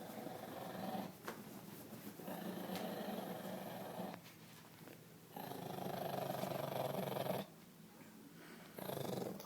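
Dog growling in about four long, rough stretches with short breaks between them, as if drawn out on each breath.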